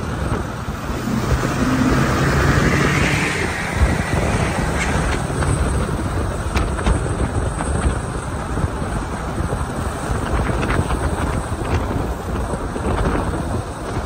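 Steady rush of wind and road noise in a moving vehicle, with wind buffeting the microphone and a few faint clicks.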